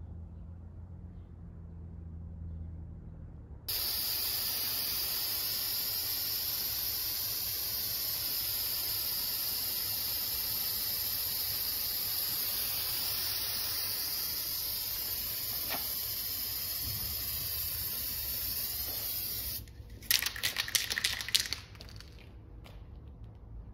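Aerosol spray can spraying coating onto a clay oni-gawara roof tile: a loud, steady hiss that starts abruptly a few seconds in, lasts about fifteen seconds and cuts off sharply. A quick cluster of short, sharp sounds follows just after.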